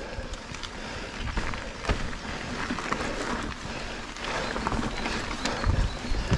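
Mountain bike rolling fast over a dirt forest trail: knobby tyres crunching on soil and leaves, with frequent rattles and knocks from the bike and a low rumble of wind on the microphone, heavier bumps near the end.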